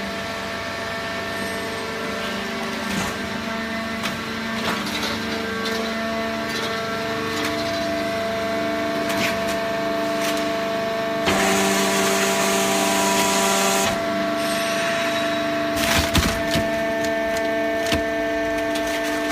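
Hydraulic baling press running: the steady multi-tone hum of its pump motor, with about three seconds of hiss partway through and a few sharp knocks a little later.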